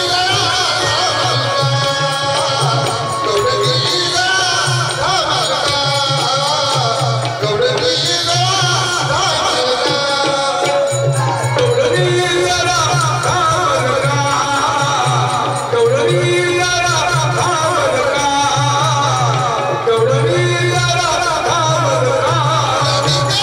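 Marathi tamasha folk song played live and amplified: a man singing over dholki drumming.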